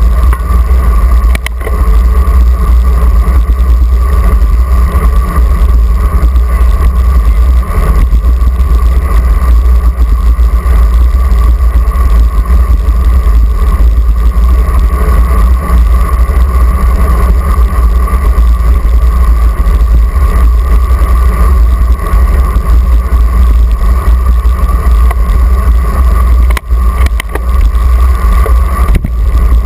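Wind rushing over the microphone of a GoPro on a moving road bicycle: a loud, steady rumble with a constant hum above it, dipping briefly a couple of times near the end.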